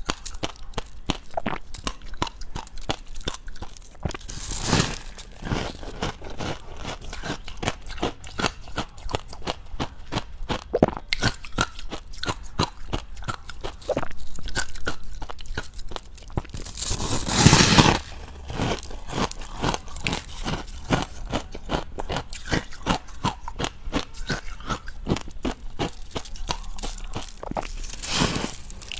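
Close-up crunching and chewing of dry, powdery white ice (freezer frost), a rapid stream of small crackling crunches. There are a few louder, longer crunches: one about five seconds in, a loud stretch a little past halfway, and another near the end.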